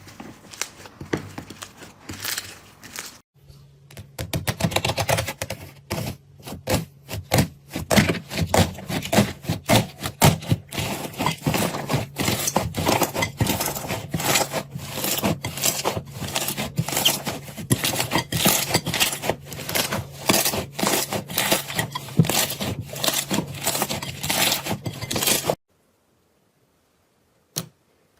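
Slime being squished and pressed by hand, giving a dense run of small crackles and clicks that builds up a few seconds in and cuts off suddenly near the end, followed by a few isolated clicks.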